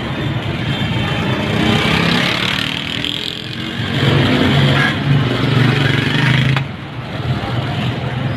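Busy street noise: motor vehicle engines running close by, with a low engine drone that is strongest midway and cuts off sharply about two-thirds of the way through.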